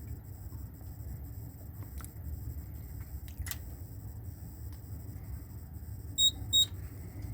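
Fire alarm control panel giving two short high-pitched beeps about a third of a second apart near the end, as the system is being reset. A couple of faint clicks come earlier over a low steady hum.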